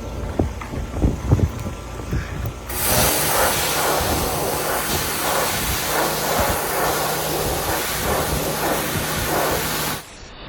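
Sun Joe pressure washer spraying: after a few low knocks, a loud steady hiss of the water jet sets in about three seconds in, with the machine's steady hum beneath it, and cuts off abruptly near the end.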